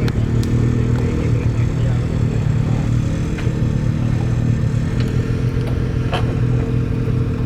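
Car engine idling steadily close by with a deep exhaust note, with a few light clicks.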